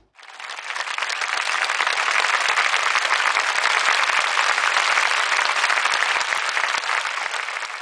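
Audience applauding with dense, steady clapping that swells up quickly just after the speech ends.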